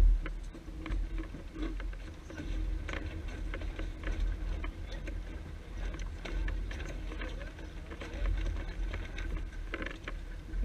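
Wind rumbling on the microphone aboard a sailing yacht, rising and falling, over a light rush of water, with scattered knocks and rattles from the crew handling the sheets during a gybe.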